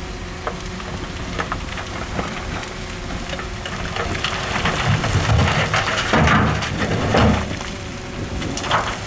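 Heavy construction machinery working: a steady engine hum with scattered crackles, and a louder rumbling rush of noise from about five to seven and a half seconds in.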